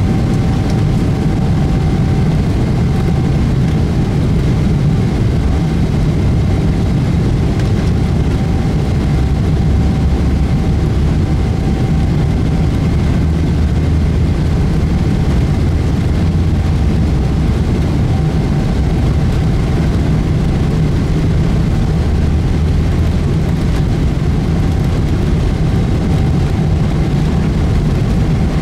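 Cabin noise inside a jet airliner moving along the runway: a steady, loud low engine rumble with a faint steady whine over it.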